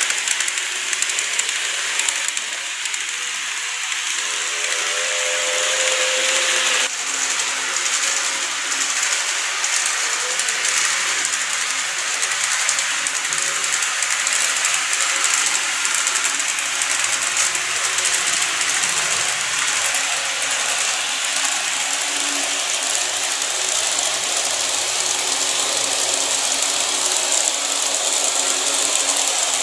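TOMIX N-gauge 209 series 2100 model train running on plastic track: a steady mechanical whir from the motor and wheels, with fine rapid clicking. The sound changes abruptly about seven seconds in.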